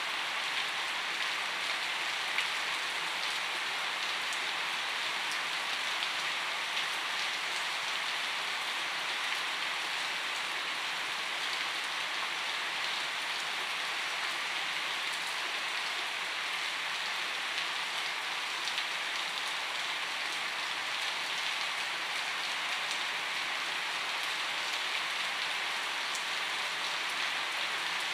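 Steady rainfall: an even hiss of many droplets, with a few slightly louder drop ticks scattered through it.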